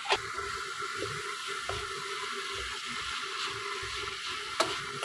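Boiled rice being stir-fried with a wooden spatula in a wok of hot oil and green coriander paste, sizzling steadily. The spatula knocks sharply against the pan just after the start and again near the end.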